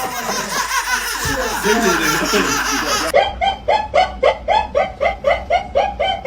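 Laughter: about three seconds of wavering laughter over a hissy background, then, after a sudden change, a strange high-pitched laugh in short, even pulses about three a second.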